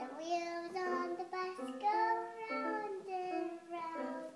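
A young child singing along while playing a melody of held notes on a small electronic toy keyboard, the notes stepping from one pitch to the next every fraction of a second.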